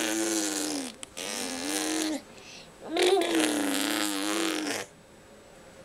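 A toddler making a "brrrum" car-engine noise by buzzing the lips while voicing, in three stretches: one ending about a second in, a short one right after, and a longer one from about three seconds in to near five.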